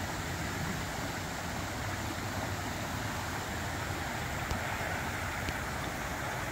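Steady rushing of a flood-swollen river running high and fast.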